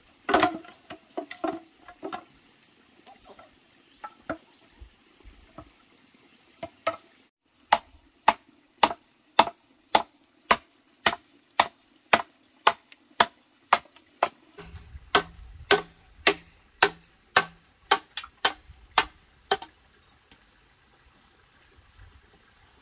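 Machete chopping into a short length of green bamboo on a wooden block: a steady series of sharp blows, about two a second, lasting around twelve seconds from about a third of the way in. Before it, a brief clatter of bamboo poles being handled.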